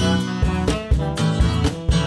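A live band playing an instrumental passage of a feel-good, jazz-inflected song: a steady drum-kit beat under bass guitar and keys, with pitched horn or keyboard lines.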